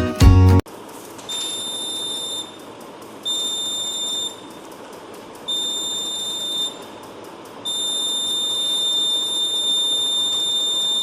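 Piezo buzzer of a homemade laser-beam security alarm (LDR and BC547 transistor circuit) sounding a high, steady tone when the laser beam is interrupted. It gives three beeps of about a second each, then a longer unbroken tone from about two-thirds of the way in.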